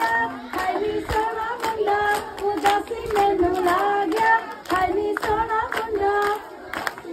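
A group of women singing a Punjabi folk boli without instruments, with steady rhythmic hand clapping from the circle; the singing fades near the end.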